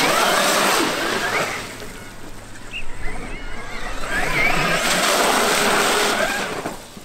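Traxxas X-Maxx brushless electric RC monster truck splashing through a puddle at speed: water spray hissing over the whine of the motor, which rises and falls with the throttle. It passes through the water twice, the second pass starting about four seconds in.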